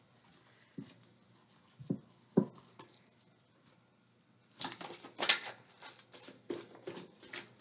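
Oracle cards being handled and shuffled by hand: a few light taps and flicks, then a longer spell of papery rustling and card flicks in the second half.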